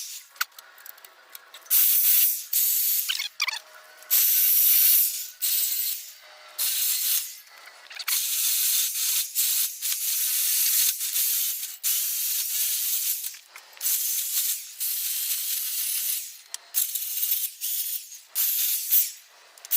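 Aerosol spray paint can spraying in short hissing bursts of about half a second to two seconds, with brief pauses between them.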